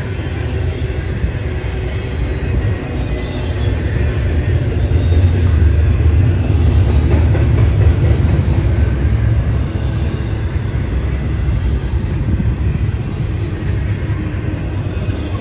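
Intermodal freight train's well cars, loaded with double-stacked containers, rolling past close by: a steady low rumble of steel wheels on rail that swells a little about halfway through.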